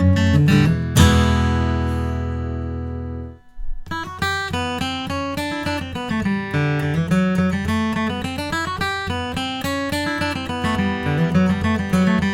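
Gibson J-200 Art Deco super jumbo acoustic guitar played solo: picked notes, then about a second in a full chord strummed and left to ring for a couple of seconds before it is cut off. Then a run of picked single notes over a moving bass line.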